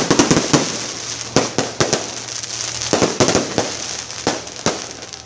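Aerial fireworks bursting overhead: an irregular run of sharp bangs and crackles, the loudest right at the start.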